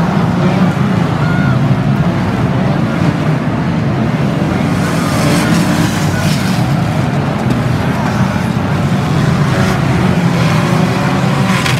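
Engines of a pack of banger racing cars running hard as they race round the oval: a loud, steady din, with a few brief sharper noises about five seconds in and again near the end.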